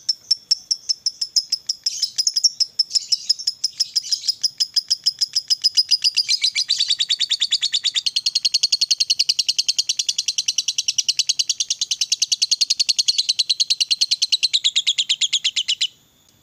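Fischer's lovebird singing its long chattering trill ("ngekek panjang"): high-pitched chirps that quicken about six seconds in into a continuous fast rattle of roughly ten notes a second, then stop suddenly near the end.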